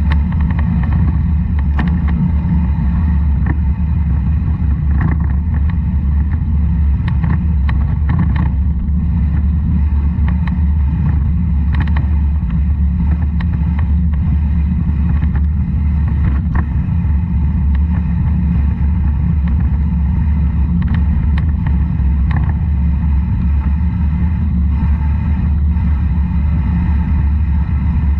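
Steady low rumble of wind and road noise on a camera riding a vehicle down a wet, rough road, with scattered short knocks and rattles from bumps.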